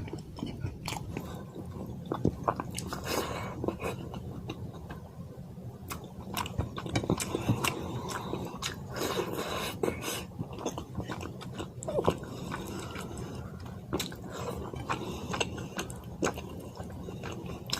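Close-miked eating of fish curry and white rice: irregular wet chewing and lip-smacking with many sharp little clicks, over a steady low hum.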